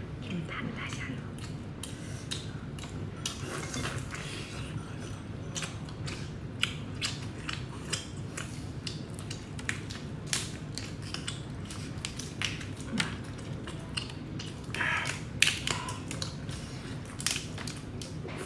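Cooked tiger prawns being peeled by hand and eaten up close: irregular sharp crackles and clicks of shell breaking and crunching, with chewing, over a steady low hum.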